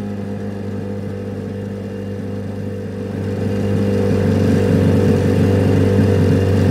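Motorboat engine running steadily with a low hum, getting louder about three seconds in.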